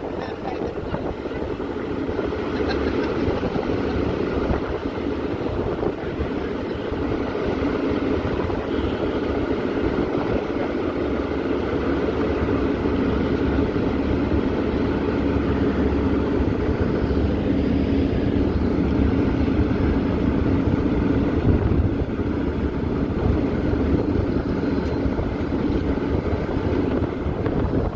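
Tower ladder fire truck's diesel engine running steadily, a continuous drone with a steady pitch.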